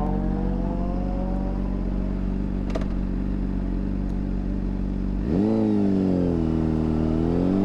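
2009 Honda CBR600RR's inline-four engine idling steadily. About five seconds in, the revs rise sharply and drop back, then climb again near the end as the bike starts to pull away.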